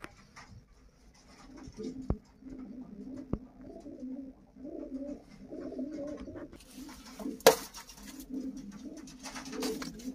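Racing homer pigeons cooing over and over in low, warbling phrases. A loud rustle with a sharp knock comes a little past halfway, and another rustle near the end.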